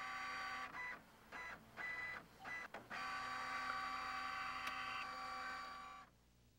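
Canon inkjet printer printing a page: its motors whir in a first run, then a few short stop-start passes, then a longer steady run of about three seconds that cuts off suddenly.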